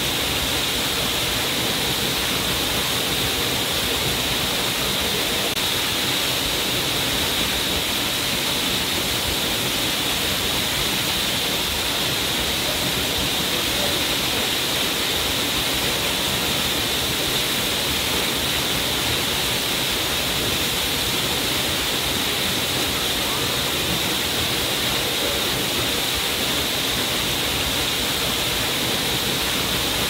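Waterfall pouring from a rock ledge onto rocks and into a shallow pool: a steady, unbroken rush of falling water.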